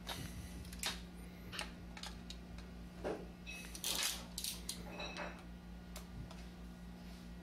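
Scattered light metallic clicks and clinks of small parts and hand tools being handled, two of them with a short ring.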